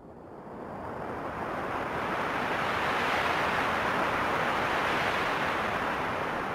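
A rushing noise that swells in over the first two seconds, holds, and eases slightly near the end.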